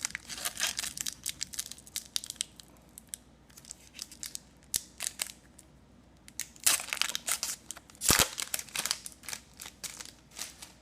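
Foil trading-card pack wrapper crinkling and tearing, with cards being handled, in bursts of sharp crackles and a sharp click about 8 seconds in.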